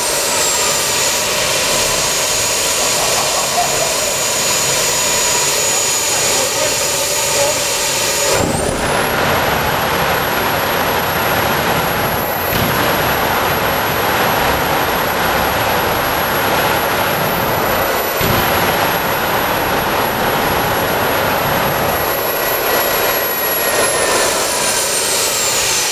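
Homemade gas turbine running: its high whine drops as it slows in the first couple of seconds and holds lower, then about a third of the way in the whine jumps up sharply and a loud rushing noise comes in as it is throttled up. It runs steadily at that speed until near the end, when the whine falls away as it spools down.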